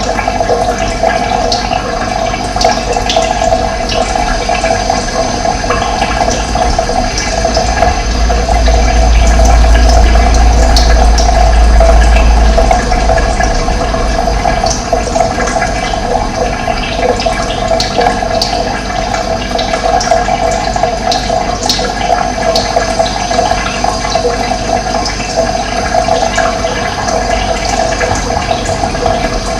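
Steady rush of running water, like a stream or small cascade. A deeper low rumble swells for a few seconds about eight seconds in.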